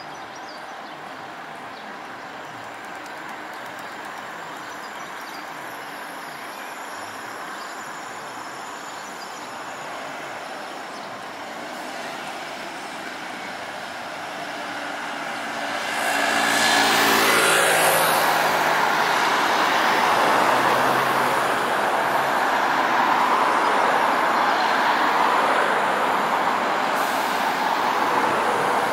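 Scania Touring coach idling at a stop with road traffic around it. About halfway through, a vehicle passes close by, and the traffic noise grows louder and stays louder.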